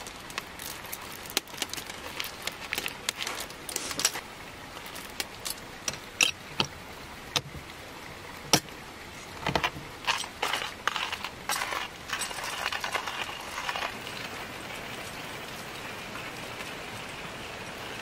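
Roasted coffee beans rattling and clicking as they are poured into a stainless steel hand coffee grinder, with a denser clatter as the crank handle is fitted. In the second half the grinder is cranked, crunching the beans with a steady gritty noise.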